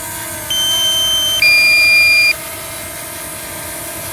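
DJI Mini 2 SE drone hovering low with a steady propeller hum. About half a second in comes a two-part electronic warning beep, a higher tone and then a lower, louder one, lasting about two seconds: the low-battery alert as the drone is brought down to land.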